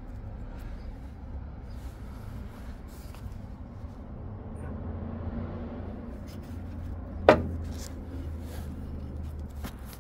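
A single sharp knock about seven seconds in, over a steady low hum and light rustling.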